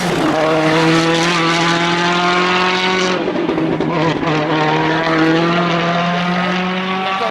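Turbocharged WRC rally car engine under hard acceleration, its note climbing slowly, breaking with a gear change about three seconds in, then climbing again.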